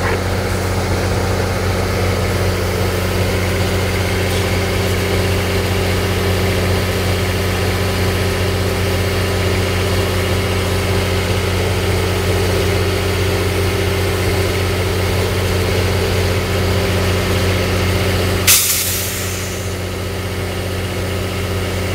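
The EMD diesel engine of a MARC GP39H-2 locomotive idling with a steady, even low hum. About three-quarters of the way in, a sudden loud hiss of released air cuts in and fades over about a second.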